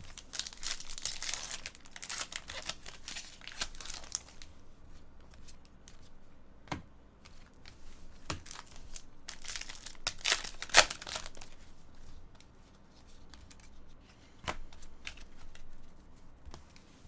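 Foil baseball card pack wrappers being torn open and crinkled, in two spells of rustling, with a few sharp taps in between.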